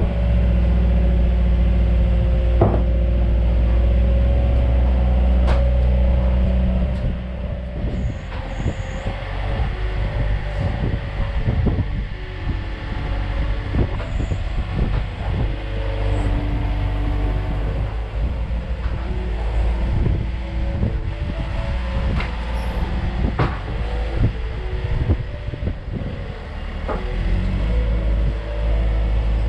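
Diesel engine of a loader with pallet forks working close by, loud and steady for about the first seven seconds, then lower. Scattered knocks and clanks follow as loads are set on the trailer bed.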